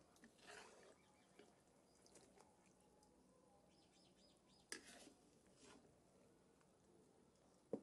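Near silence, broken by a few faint clinks of a metal skimmer against a cast-iron cauldron and an enamel plate as food is served, with one sharper click about halfway through.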